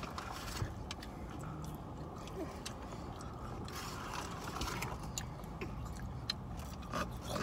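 Quiet eating sounds in a car: scattered small clicks and crunches of chewing and handling fast food, over a steady low hum.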